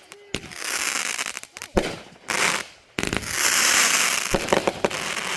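Fireworks going off: several sharp bangs, about one every second and a half, with stretches of dense crackling between them, loudest about three to four seconds in.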